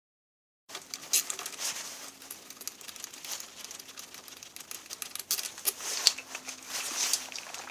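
Rustling and crinkling with many sharp small clicks and taps scattered throughout, after a brief dead silence at the start.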